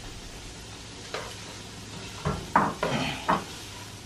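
Vegetables sizzling as they stir-fry in a hot oiled nonstick pan. A spatula scrapes and knocks against the pan once about a second in, then several times in quick succession in the second half, as the vegetables are tossed.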